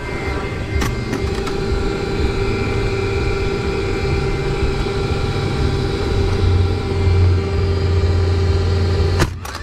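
Craftsman cordless drill running steadily at a constant pitch, driving a screw into pine framing, getting louder in the last few seconds and stopping abruptly near the end.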